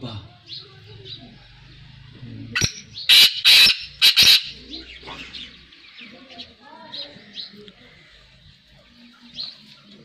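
A pet quail calling: soft, short high chirps come and go, with a run of about four loud, sharp calls close together around three to four seconds in.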